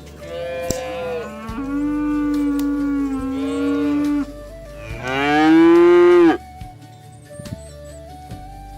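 Cattle mooing: a long moo of about four seconds, then a louder moo of about a second and a half that rises in pitch, over faint background music that carries on alone after the calls stop.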